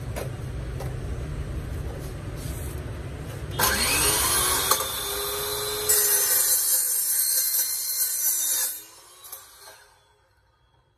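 Makita LC0700F table metal-cutting saw with a 180 mm carbide-tipped blade. The motor starts with a rising whine about three and a half seconds in, and the blade cuts through a steel pipe, loudest from about six seconds in. Near nine seconds the cutting stops and the electric brake winds the blade down within about a second.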